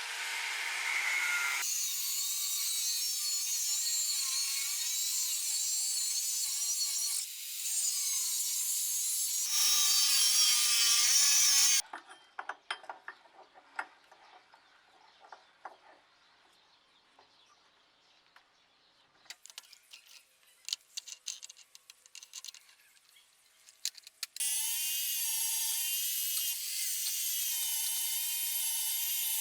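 Power grinder working steel, a loud high hiss with a whine that dips and rises under load. It stops suddenly about twelve seconds in, leaving faint scraping and clicking, then starts again near the end.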